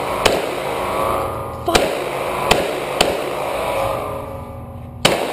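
Semi-automatic pistol fired five times at uneven spacing: a shot shortly after the start, three more in quick succession over the next few seconds, and a last, loudest shot near the end. Each shot is followed by ringing echo off the hard walls of the indoor range.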